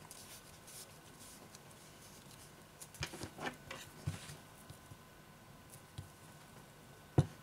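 Soft clicks and taps from handling a roll of double-sided tape and tweezers over a tablet display module. A small cluster of them comes about three to four seconds in, and one sharp click comes near the end.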